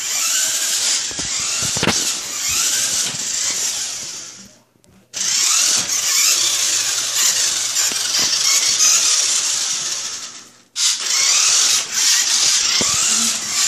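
Small electric motor of a radio-controlled toy truck whining as it speeds up and slows, its pitch gliding up and down. It cuts out twice, about four and a half and ten and a half seconds in, then starts again.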